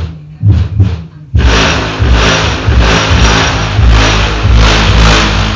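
Car audio system playing bass-heavy music at high volume, cutting in loud about a second and a half in after a brief lull, with pulsing beats over a deep bass.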